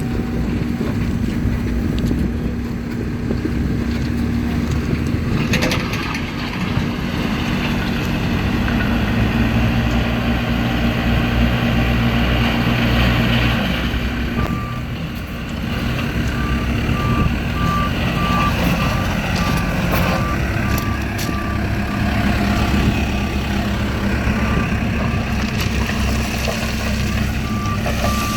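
Backhoe's diesel engine running steadily under work, with a few sharp knocks, and from about halfway through its reversing alarm beeping at a regular pace.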